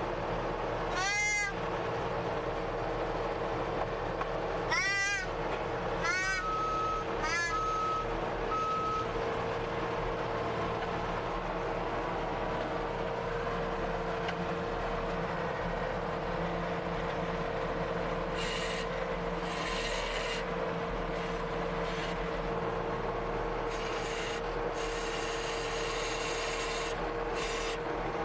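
Skid steer engine running steadily, heard from inside the cab while the machine creeps forward. A few short squeaky chirps come in the first several seconds, then three short beeps, and bursts of harsh rasping come in over the last ten seconds.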